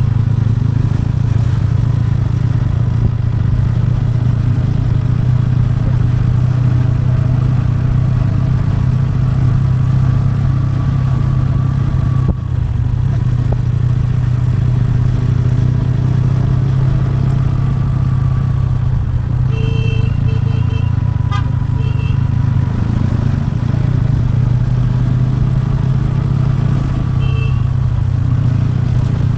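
TVS Ronin's single-cylinder engine running steadily under way, with a strong low drone throughout. A few short horn beeps come about two-thirds of the way through and once more near the end.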